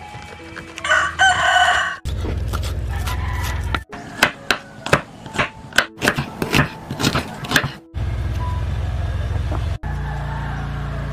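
A rooster crows once, loudly, about a second in. Then a kitchen knife chops through a red onion onto a wooden cutting board, a quick run of about three strokes a second for some four seconds, with background music and a steady low beat around it.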